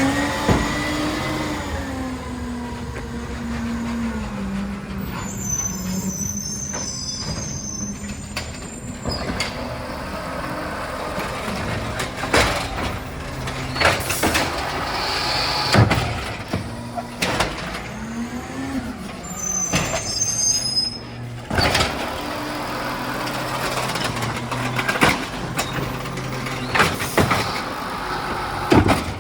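Garbage truck running through a trash pickup: its engine note sinks over the first few seconds and rises and falls again later. A high squeal comes twice, and several sharp bangs and air hisses come in the middle part.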